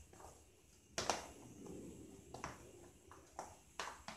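Faint handling sounds of cooked penne pasta being mixed by hand in a plastic food container: soft rustling with a few light taps and clicks, one about a second in and a couple near the end.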